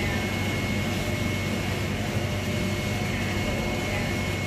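Steady mechanical drone with a low hum and a thin high steady tone through it, unchanging throughout.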